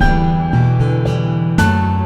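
Background music: plucked acoustic guitar with piano, a new note or chord about every half second.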